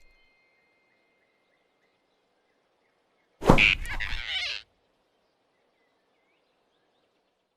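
Near silence, broken about three and a half seconds in by a single loud, sudden sound effect, a thunk with a noisy tail lasting about a second, then silence again.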